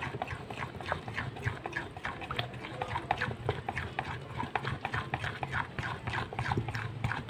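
Metal spoon beating thick flour-and-water batter in a ceramic bowl, clicking against the bowl several times a second in an irregular rhythm.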